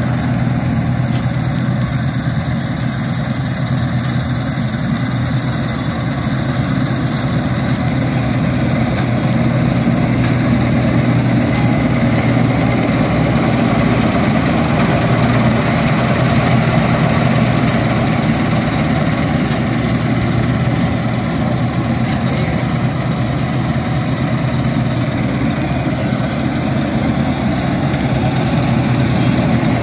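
Dashmesh 9100 combine harvester's diesel engine running steadily, with a constant low hum.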